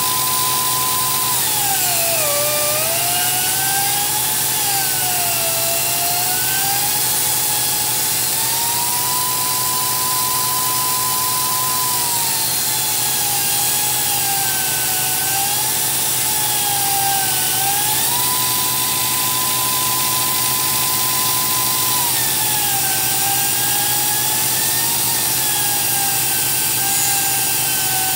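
The press repair robot's grinder runs with a steady high whine. Its pitch sags and wavers lower whenever the wheel bears into the steel plate, and twice climbs back to the level free-running whine for a few seconds, about 8 and 18 seconds in.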